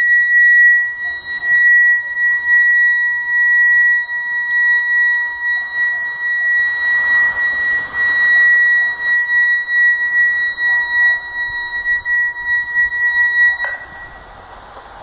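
A loud, steady, high-pitched tone of unknown origin with fainter overtones, held without a break, that cuts off suddenly near the end. It is like an electronic alarm tone.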